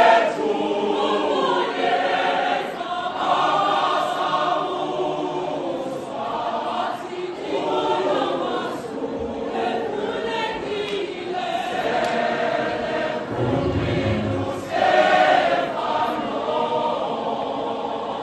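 A choir singing together in harmony. A brief low thud comes about fourteen seconds in.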